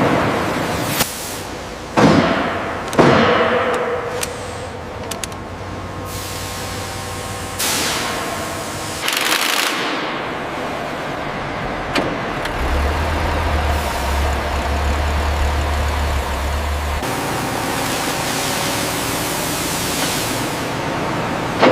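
Heavy-machinery factory noise: a steady hiss with sharp metallic knocks and clanks, the loudest two a second apart early on, several rushes of noise, and a low machine hum that starts partway through and cuts off abruptly.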